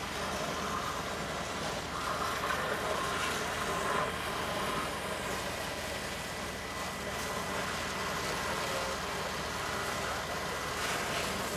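Fire engine running steadily, its pump feeding the charged hose lines, with an even hiss over the low drone.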